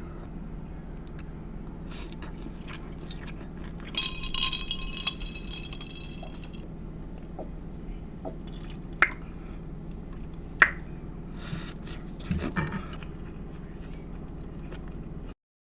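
Close-miked eating sounds over a steady low hum: a ringing clink of tableware about four seconds in, then a couple of sharp clicks and short bursts of chewing and mouth noises later on.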